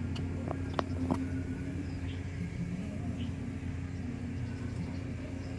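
Steady low rumble with a faint low hum running under it, and a few faint clicks in the first second or so.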